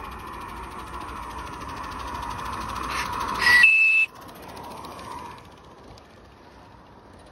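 Live-steam garden-railway locomotive running toward and past, its running sound building, then a short steam whistle blast about three and a half seconds in that steps up in pitch partway through and cuts off sharply.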